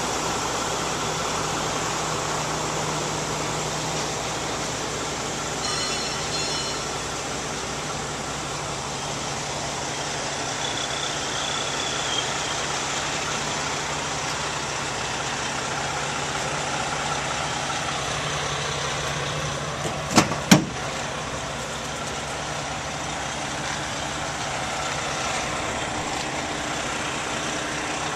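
Vehicle engine idling steadily, with outdoor background noise. Two sharp knocks, close together, about twenty seconds in.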